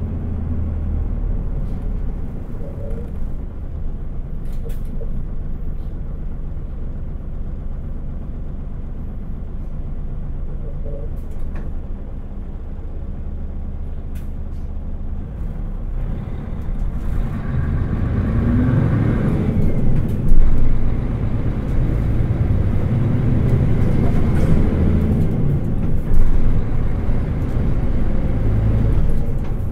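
Engine and running noise of a Mitsubishi Fuso New Aerostar PJ-MP37JK city bus heard from inside: steady and low at first, then about halfway through it grows louder with a rising whine as the bus accelerates. Two sharper bangs come later, one past the middle and one near the end.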